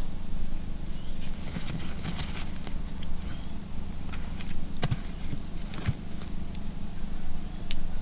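Whole spice-rubbed fish grilling on a wire rack over charcoal embers: scattered sharp crackles and pops of fat and coals over a steady low background.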